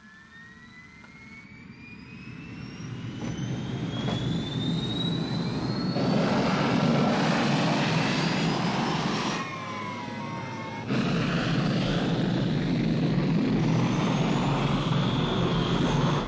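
Engine noise from an action-film soundtrack. A whine rises steadily in pitch and grows louder over the first six seconds, then the sound cuts abruptly between stretches of loud rumbling engine noise.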